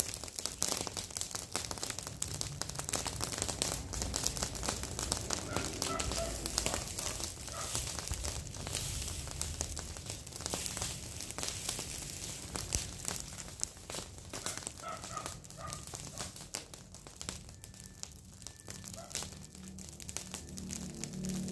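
A pile of dry garden debris burning in the open, crackling and popping steadily.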